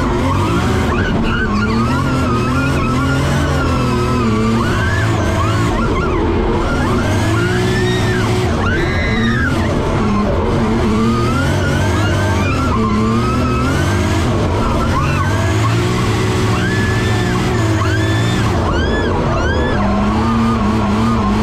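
Drift car engine running hard, heard from inside the cabin, with tyres squealing as the car slides. A passenger screams and laughs over it.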